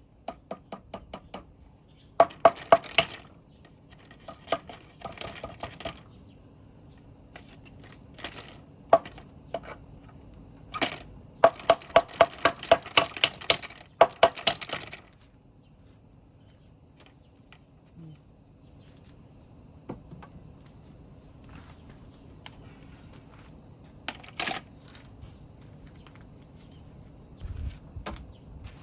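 Runs of quick, sharp taps at about four a second, in short bursts and one longer run of a few seconds near the middle, from hand work on scrap wood. A steady high insect drone, like crickets, runs underneath.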